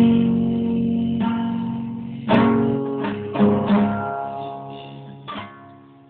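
Guitar strummed between sung lines: a chord at the start left to ring, a few more strums around the middle and one near the end, each dying away.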